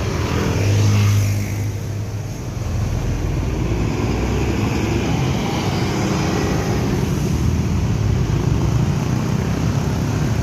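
Diesel engine of a double-decker coach running as it pulls out, with a deep drone loudest in the first two seconds, then steady engine and road noise.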